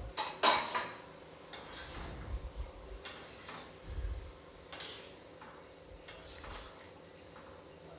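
A metal clatter about half a second in, then a spatula stirring a thin tomato-potato curry in a kadhai, with a few light scrapes and taps against the pan.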